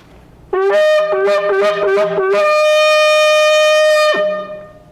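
A shofar (ram's horn) blown: a quick run of short blasts jumping between two notes, then one long held note that drops in pitch as it ends.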